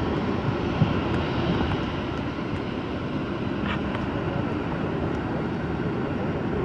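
Jet airliner engines, a steady loud noise with most of its weight low down.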